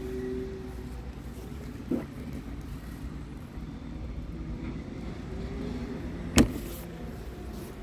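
Scania R tractor unit's diesel engine idling steadily at a standstill, with a small click about two seconds in and a single sharp knock near the end.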